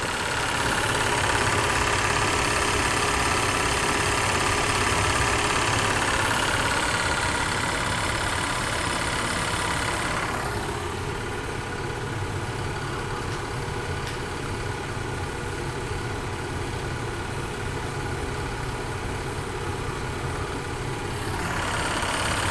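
Bell & Howell 265A 8mm film projector running: the steady whir and chatter of its motor, cooling fan and film mechanism. About ten seconds in the sound turns duller and a little softer, and it brightens again near the end.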